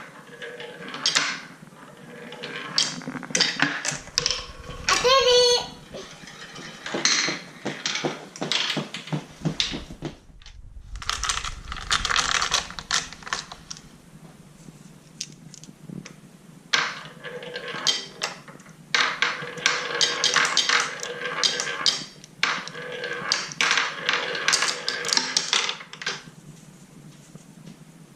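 Handmade wooden marble run in action: marbles rolling and clacking down wooden tracks, with dense irregular clicks and rattles that come in busy stretches and brief lulls.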